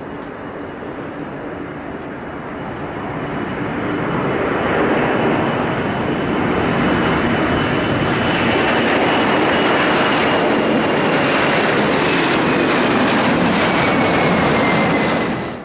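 Boeing 747 freighter's four jet engines at takeoff thrust as it rolls, lifts off and climbs past: a steady jet roar that swells over the first few seconds and then holds loud, with a thin high whine that falls slightly in pitch near the end. The roar cuts off abruptly just before the end.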